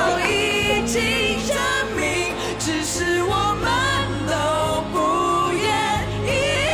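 A Mandarin pop ballad sung live over band accompaniment, the voice gliding between long held notes.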